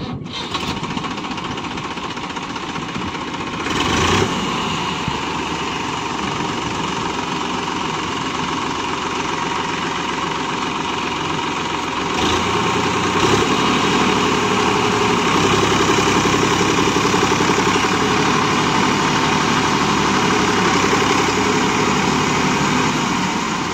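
Massey Ferguson 7250 DI tractor's three-cylinder diesel engine running under load as the tractor, bogged deep in mud, tries to pull itself out. The engine steps up in revs about four seconds in and again about twelve seconds in, then holds.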